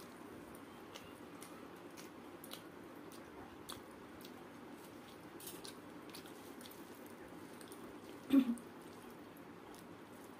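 A person eating rice by hand: soft chewing and the squish of fingers mixing rice with dal on a plate, with scattered small clicks and lip sounds. One brief, louder sound about eight seconds in.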